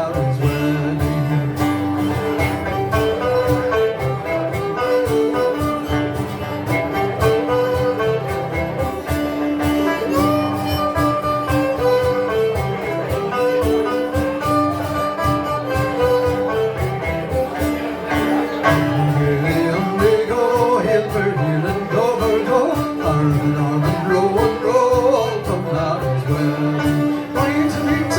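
Live folk band playing an instrumental passage: strummed 12-string guitar and banjo under a melody line that rises and falls.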